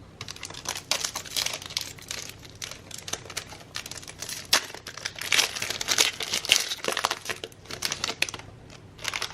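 Plastic trading-card pack wrapper crinkling as it is torn open and handled, a dense crackly rustle that stops about eight seconds in, with one more short burst near the end.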